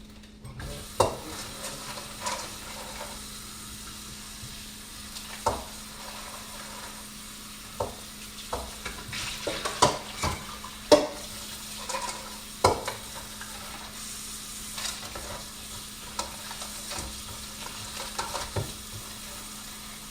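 Fresh garlic sizzling in the crab-boil sauce in a pan as it is stirred, with a utensil knocking against the pan several times, the loudest knocks about ten to thirteen seconds in.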